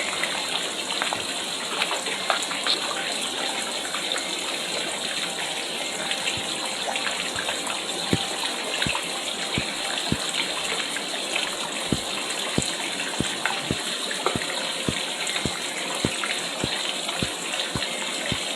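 Water pouring steadily into a pond from a small waterfall, a continuous splashing rush. From about eight seconds in, short low plops come roughly one to two a second over the rush.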